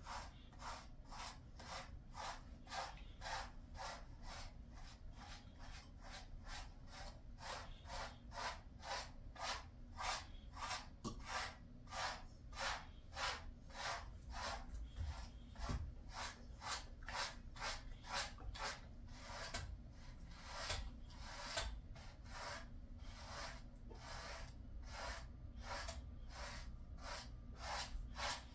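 Pet grooming brush drawn through a Jindo dog's fur in steady, even strokes, about two brushing strokes a second.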